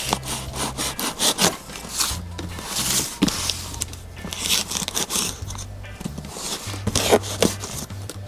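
A large knife slitting packing tape and cutting through a cardboard box, a run of short rasping, scraping strokes.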